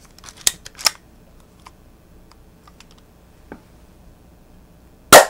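Cheap full-metal spring-powered airsoft pistol being handled and cocked, two sharp clicks about half a second and a second in, then a few faint ticks, then one loud, sharp shot near the end as it fires a BB.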